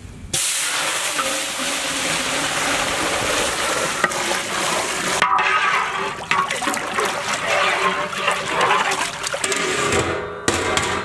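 Water poured in a heavy stream from a large aluminium pot into a big cooking vessel, gushing and splashing over whole spices, with a brief break about five seconds in.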